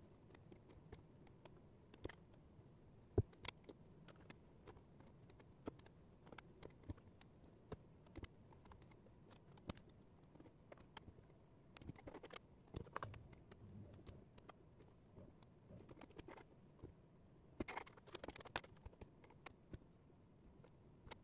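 Thin wooden jigsaw puzzle pieces clicking and scraping on a tabletop as they are picked up and fitted into place. The taps are light and scattered, with one sharper click about three seconds in and busier bursts of handling around twelve and eighteen seconds.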